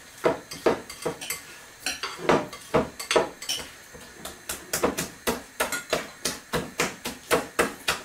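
A utensil stirring sticky risen yeast dough in a glass bowl, knocking against the side of the bowl in an uneven run of sharp clinks, about two to three a second.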